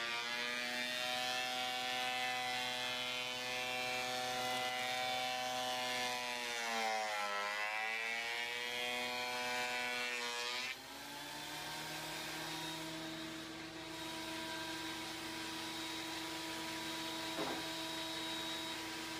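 DeWalt benchtop thickness planer and shop vac running together, with the vac drawing planer chips through a homemade cyclone separator. The motor whine sags in pitch for a couple of seconds about seven seconds in as a board feeds through under load, then recovers. The level drops suddenly about eleven seconds in, and the machines keep running steadily after that.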